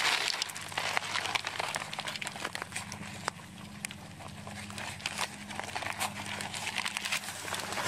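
Irregular light crackles and clicks over a faint, steady low hum.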